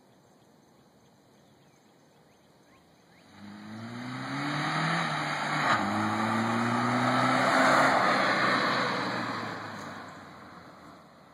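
1994 Saturn SL1's 1.9-litre four-cylinder engine accelerating through the gears as the car drives past and away, with tyre noise on the road. The engine note climbs, drops once about halfway as it shifts up, climbs again, is loudest as the car passes and then fades.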